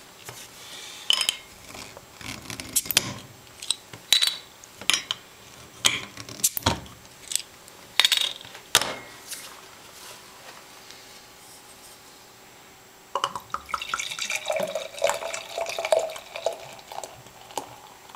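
Beer cans and a glass being handled: a string of sharp knocks and clinks over the first nine seconds or so. Then, about thirteen seconds in, a few seconds of lager pouring and splashing into a glass.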